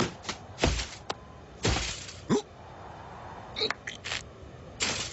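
A quick string of cartoon sound effects: several short noisy hits and clicks, a fast falling pitch glide about halfway through, and brief high squeaks near the end.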